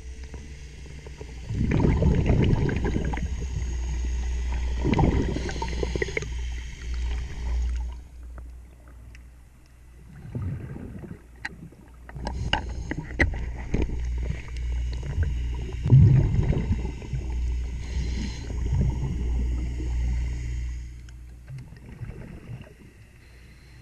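Underwater: a scuba diver's breathing, with loud rushes of exhaust bubbles every few seconds. Between them come sharp clicks and knocks, and a steady low hum runs under everything.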